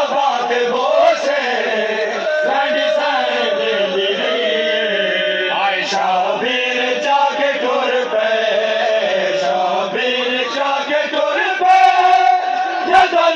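Men's voices chanting a noha, a Shia mourning lament, together in a group. The lines are drawn out on long held notes.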